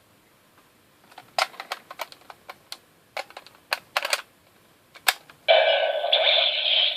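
Hard plastic clicking and snapping several times as a Zyudenchi battery toy is handled and loaded into the Gabutyra de Carnival toy. About five and a half seconds in, the toy's small speaker starts playing a loud electronic sound.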